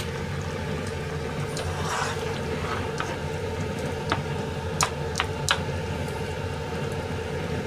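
Steady low hum at a gas stove where a coconut curry is simmering in a frying pan, with four sharp clicks or knocks between about four and five and a half seconds in as the pan and a utensil are handled.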